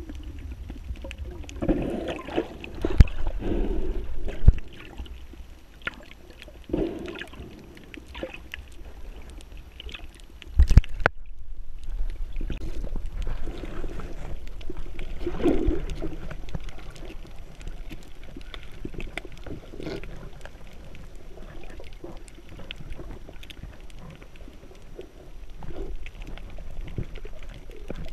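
Diver's exhaled bubbles from a scuba regulator, heard on an underwater camera, gurgling in swells every few seconds. A sharp knock about eleven seconds in, followed by a brief moment of quiet.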